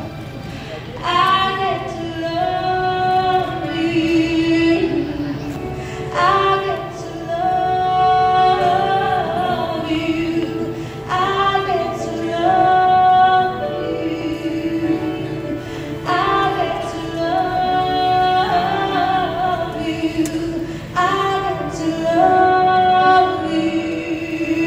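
A woman singing a slow song into a microphone over a church sound system, in sung phrases of held notes that begin again about every five seconds.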